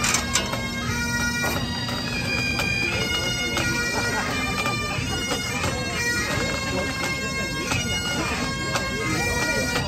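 Pipe band's Highland bagpipes playing a tune, held melody notes stepping between pitches over the steady drone.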